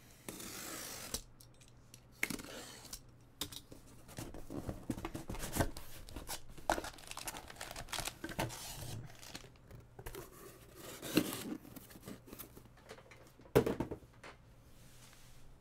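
A cardboard trading-card box being opened and unpacked. A tearing rasp comes first. Then cardboard and foil-wrapped card packs rustle and click as they are lifted out and set down, with a couple of sharper knocks near the end.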